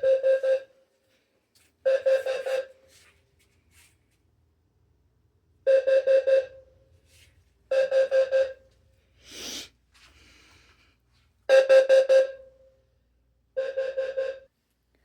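Two fire alarm horns, one a Wheelock low-frequency sounder, each sounding code 4 (temporal-4): groups of four quick pulses of a low, steady horn tone, the carbon monoxide alarm pattern. The two horns are out of sync, so their groups alternate about two and four seconds apart. A brief rustling noise comes about halfway through.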